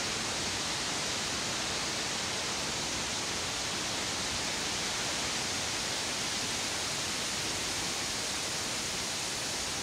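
Steady, even rushing hiss of outdoor ambience with no distinct calls or knocks.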